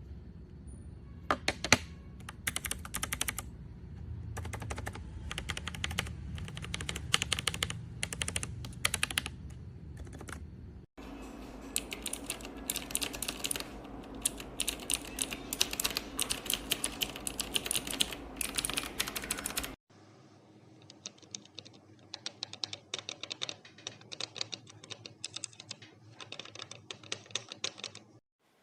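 Mechanical keyboard fitted with matte translucent keycaps being typed on, rapid clacking keystrokes. It runs in three stretches with abrupt cuts between them, and the last stretch is quieter.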